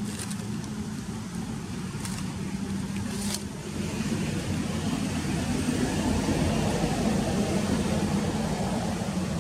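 Steady motor rumble with a low hum, growing louder about four seconds in, with a few short clicks.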